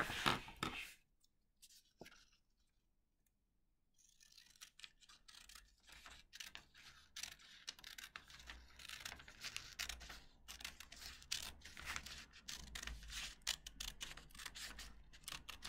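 Scissors cutting through a sheet of lined notebook paper, a long run of irregular crisp snips that starts about four seconds in.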